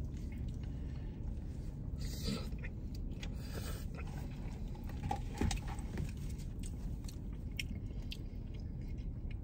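Quiet eating sounds: a spoon clicking and scraping in a bowl of chili mac, chewing, and the rustle of fast-food packaging, with scattered small clicks and short rustles over a low steady hum.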